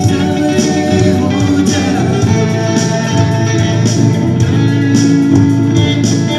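Electric and acoustic guitars playing a worship song together, with a male voice singing.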